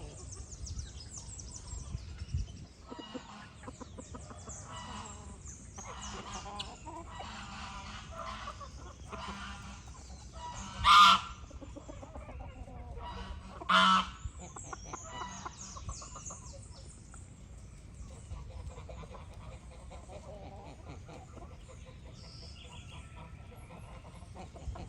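Chickens clucking, with two loud, short calls about three seconds apart near the middle.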